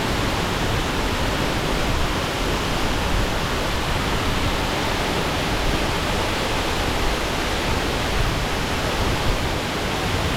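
Waterfall pouring steadily, a constant rush of falling water.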